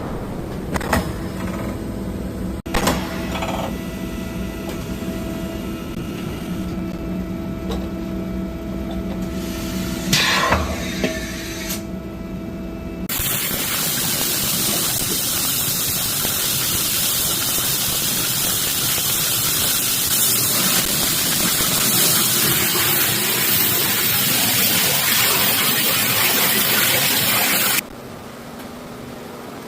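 A CNC machine running with a steady hum and a few knocks, then about halfway through a loud, even spraying hiss begins and holds before it cuts off suddenly near the end.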